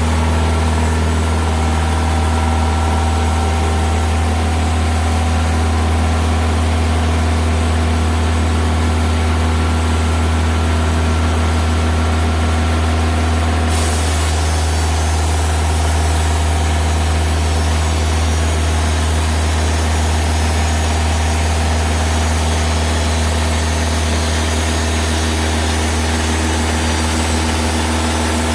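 Diesel engine of a TimberKing 2000 band sawmill running steadily at a constant pitch. About halfway through, a brighter hiss in the high range comes in suddenly over the engine.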